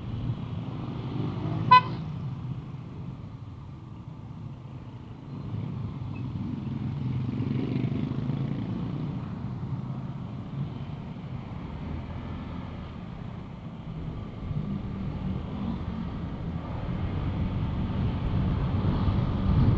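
Steady low engine and road rumble of a Honda ADV150 scooter riding in traffic, with one short, high vehicle horn toot about two seconds in.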